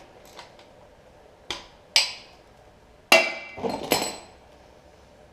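Metal tools and parts clanking: about five sharp metallic knocks and clinks, the loudest about two and three seconds in, one of them ringing briefly.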